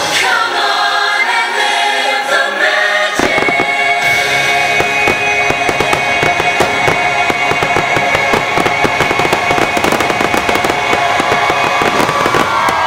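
Fireworks-show soundtrack with a choir singing over sustained orchestral chords; from about three seconds in, a rapid, dense barrage of firework bursts and crackles sounds over the music, as in a show's finale.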